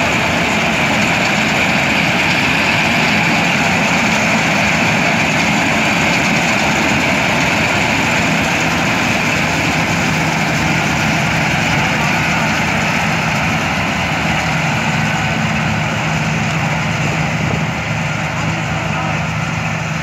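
Swaraj 8100 combine harvester running at work in wheat: engine, cutter bar and threshing drum making a steady, dense mechanical drone with a low hum and hiss. It grows slightly fainter over the last few seconds as the machine moves away.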